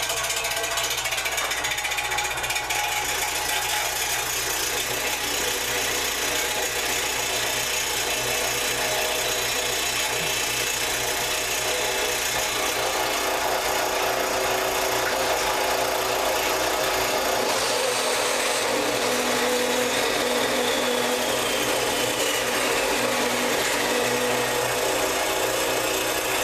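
Central Machinery 1 HP 4x6 horizontal metal-cutting band saw running steadily, its blade cutting into 1-inch square metal stock with a dense, even grinding.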